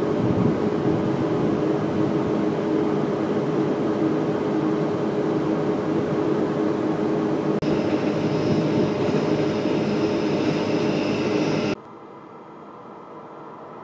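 Loud, steady hum of electric trains' fans and traction equipment in a rail yard, with a high-pitched whine joining a little past halfway. Near the end it cuts to a much quieter, slowly growing rumble of an approaching electric locomotive-hauled train.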